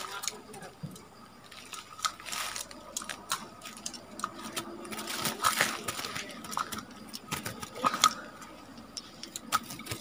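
Irregular clicks and rattles of a wire bird trap cage being handled, with a trapped wild bulbul fluttering against the wires.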